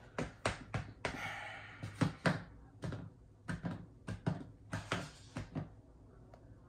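A quick irregular run of light taps and knocks, about seventeen in five seconds, with a brief rustle about a second in, stopping near the end: objects being handled close to the microphone.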